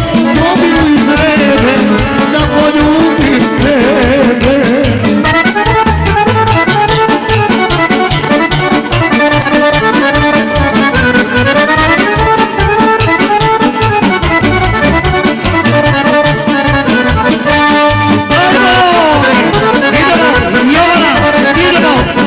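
Live Serbian folk dance music for a kolo: an accordion plays the melody over a steady beat.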